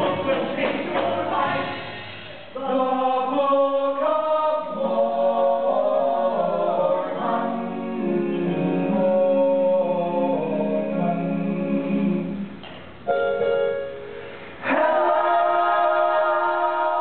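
Mixed ensemble of singers holding long chords in harmony, backed by the band only in the first couple of seconds. The voices break off twice briefly near the end, then hold a final chord.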